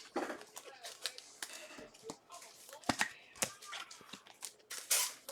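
Trading cards being handled on a table: a run of light clicks and rustles, with a short swishing scrape about five seconds in.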